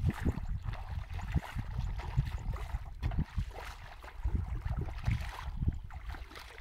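Bare feet treading slowly through shallow wet mud, squelching and sloshing with each uneven step.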